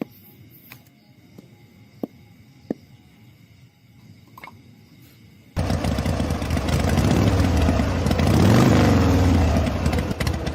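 A few faint clicks, then a motor starts suddenly a little past halfway and keeps running loudly with a steady low hum.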